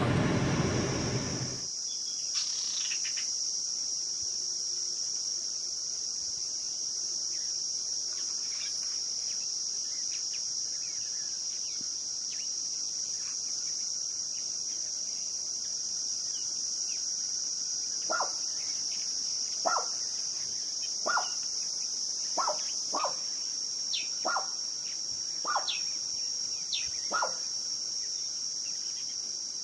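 Steady high-pitched chirring of night insects such as crickets. In the second half, about eight short, sharp, falling chirps come roughly one a second over it.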